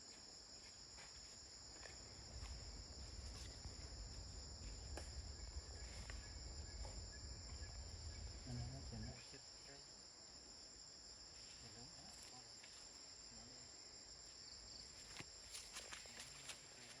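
A steady, faint chorus of crickets or similar insects, holding two high pitches. Under it, a low rumble stops about nine seconds in.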